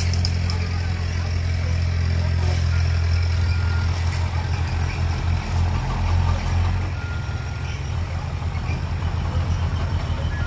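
Diesel engine of a heavy dump truck running as the truck moves slowly, a steady low drone that eases off about seven seconds in.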